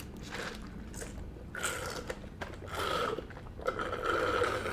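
A person chewing food close to the microphone, with wet mouth sounds coming in uneven spells, strongest near the end.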